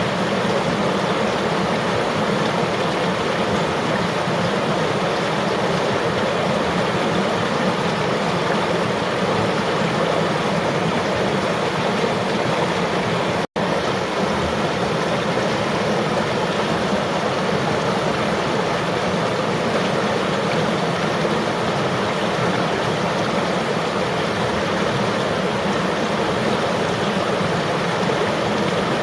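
Steady rush of flowing river water, an even sound with no breaks except where it cuts out for an instant about halfway through.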